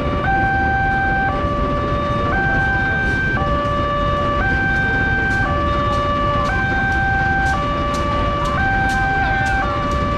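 Railway level-crossing warning alarm sounding a steady high-low two-tone, switching about once a second, over the low rumble of waiting traffic. A fast, sharp ticking about two or three times a second runs alongside and grows stronger after a few seconds.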